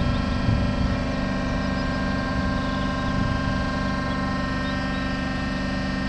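M62 diesel locomotive's two-stroke V12 diesel engine running steadily while the locomotive stands still, a dense, even drone made of many stacked tones.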